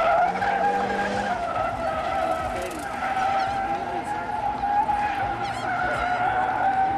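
A drifting car's tires squealing in one long, continuous slide, the squeal wavering up and down in pitch as the rear tires are held sideways. It fades right at the end.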